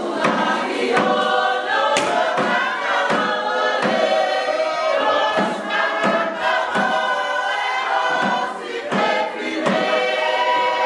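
Tongan dance song sung by a group of voices together, with a sharp percussive beat about twice a second.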